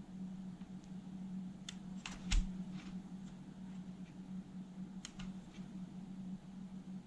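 Short clicks and scrapes of a flat scraper against a cassette deck's motor pulley as degraded rubber belt goo is scooped off: a cluster of clicks about two seconds in, the loudest near the middle, and two more about five seconds in, over a steady low hum.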